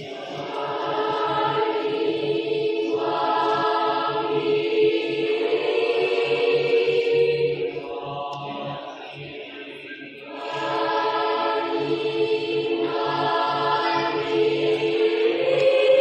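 A mixed choir of boys and girls singing held chords in long phrases. The singing drops quieter about eight seconds in, then swells back up around ten seconds in.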